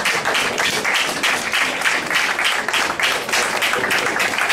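Audience applauding steadily as the guest of honour is called up to speak.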